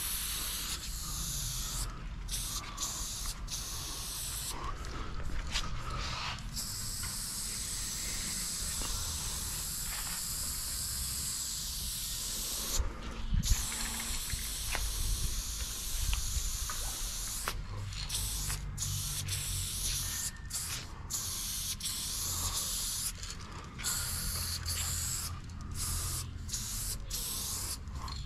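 Aerosol spray paint can hissing in long bursts, broken by many short pauses as the nozzle is released and pressed again.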